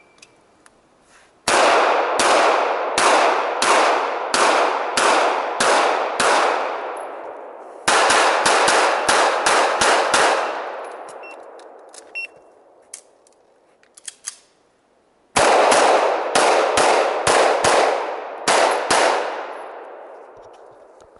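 Handgun fired in three fast strings of shots, each shot ringing out through the trees. The strings are broken by pauses of a second and about four seconds while the shooter moves or reloads, with a few faint clicks in the second pause.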